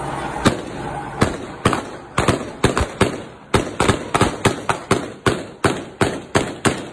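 Gunfire in a shootout: about two dozen shots fired at an uneven pace, some in quick pairs, over about six seconds.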